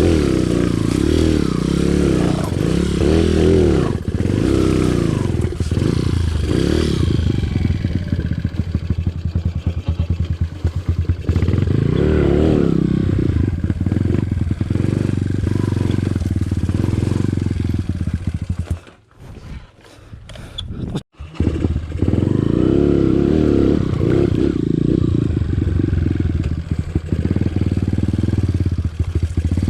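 Off-road motorcycle engine running while being ridden on a trail, its revs rising and falling. Near the middle the sound drops almost away for about two seconds, then the engine returns.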